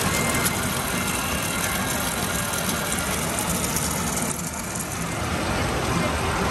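Arcade ticket dispenser feeding out a strip of paper tickets with rapid ratcheting clicks, over the steady din of an amusement arcade.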